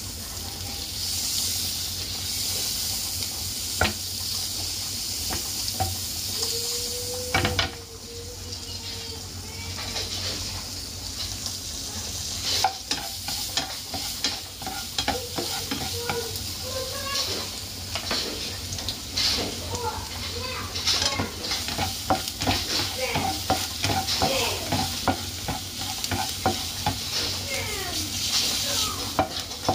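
Butter sizzling in a hot frying pan, then minced garlic sizzling in the butter as a spatula stirs and scrapes it around. The stirring gives many short knocks and scrapes against the pan through the second half.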